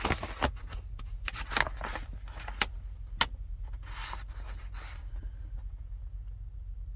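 Paperwork being handled and searched: a string of sharp clicks and scrapes, then a brief rustle about four seconds in, over a steady low hum.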